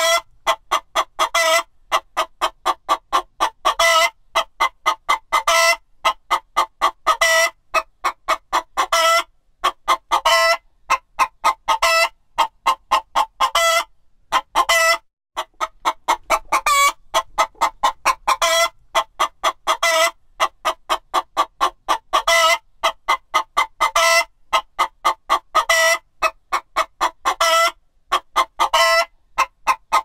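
A chicken clucking in quick runs of short clucks, each run ending in a louder, higher call about every second and a half. There is a brief pause about fifteen seconds in.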